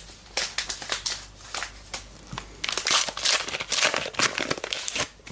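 Crinkling and crackling of a trading card pack's wrapper being torn open and handled, a dense run of sharp crackles that is busiest in the middle.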